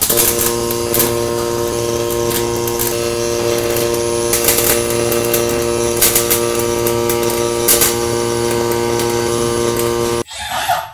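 Robotic pulsed MIG (Miller RMD) welding arc laying a filler weld around a steel hex nut: a steady hum with crackling and occasional sharp snaps, which stops abruptly about ten seconds in as the weld finishes.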